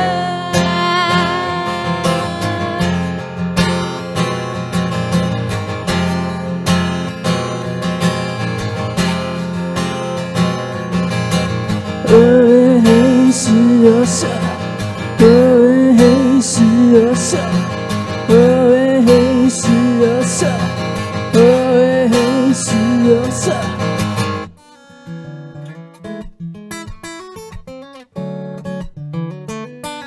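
Steel-string acoustic guitar with a capo, strummed through an instrumental break in a live song, with a held sung note at the start. About twelve seconds in the strumming grows louder around a repeating figure. Just after twenty-four seconds it drops to soft, sparse playing.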